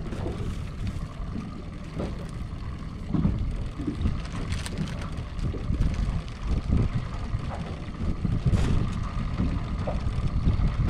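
Small fishing boat's motor running, with wind buffeting the microphone in uneven gusts. A faint steady whine sits above the rumble, with a few small knocks.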